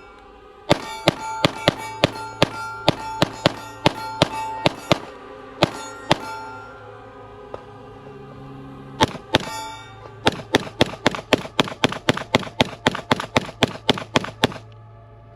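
Pistol shots from a compensated Sig P320 Spectre Comp, fired about two a second for the first six seconds. Two more come near nine seconds, then a fast string of about four a second stops shortly before the end.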